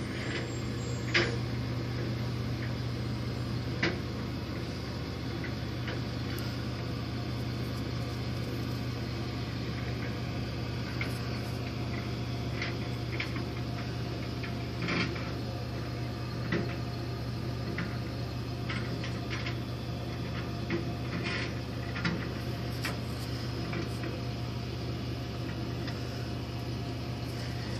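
Steady low hum of a flatbed tow truck's engine running while its winch pulls a van up the bed, heard through a closed window, with scattered light knocks.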